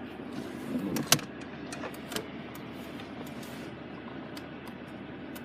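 Steady low hum inside a car's cabin. One sharp click comes about a second in, then a couple of lighter clicks, like controls being handled.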